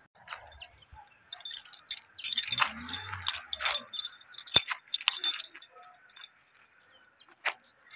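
Small metal objects jingling and clinking irregularly for a few seconds, with a sharp click about four and a half seconds in.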